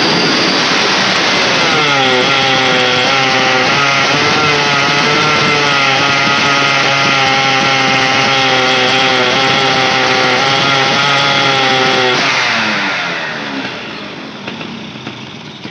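Yamaha F1ZR's two-stroke single-cylinder engine held at high revs: it climbs in the first couple of seconds, then holds steady without revving out, with no change when the mixture is altered at the carburettor. The mechanic takes that lack of reaction to mean the top-end hesitation comes from weak ignition, not fuelling. About twelve seconds in the revs drop away and it goes quieter.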